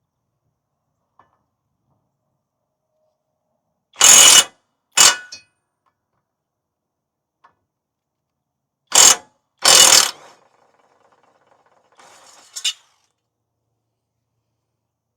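A wrench working a mower blade bolt in four short loud bursts, then faint metallic rattling that ends in a click.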